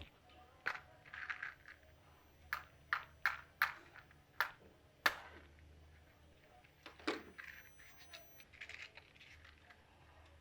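Kitchen handling sounds: scattered sharp knocks and clinks of utensils and containers being set down and moved, about ten of them, with soft rustling in between.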